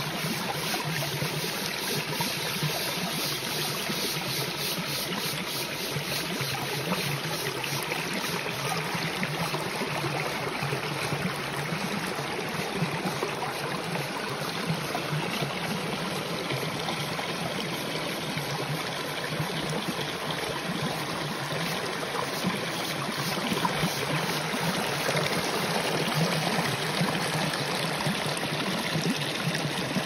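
Shallow forest stream flowing over rocks: a steady rippling and trickling of water, heard close to the surface.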